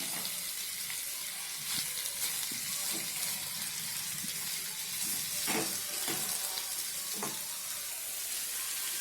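Chicken pieces and onions sizzling in oil in a kadai over a medium flame, a steady frying hiss with a few brief clicks scattered through it.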